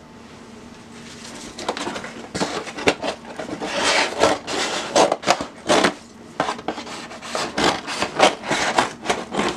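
Cardboard box being worked open by hand: a run of irregular rustles, scrapes and rubs that starts about a second and a half in.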